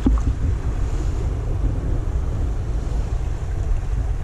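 Wind buffeting the microphone over the wash of ocean surf on a rocky shore: a steady, gusting low rumble, with one brief knock at the very start.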